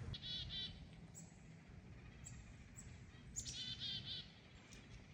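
A bird calling twice: each call is a short, quick series of repeated high notes, the second near the end. Faint ticks sound in between.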